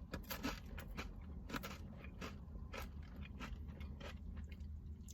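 Crunching and chewing spicy dill pickle potato chips in the mouth: a run of faint, irregular crisp crunches.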